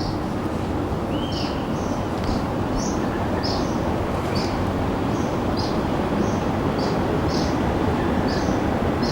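A helicopter flying overhead makes a loud, steady rumble that grows slightly louder. Over it, a bird repeats short high calls about twice a second.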